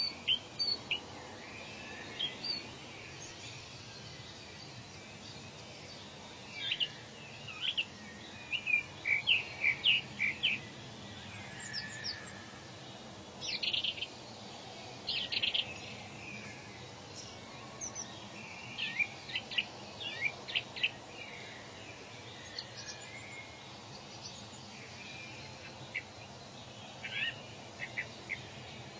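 Several wild birds chirping and trilling in short, scattered calls, thickest in the middle of the stretch, over a steady faint background hiss of forest ambience.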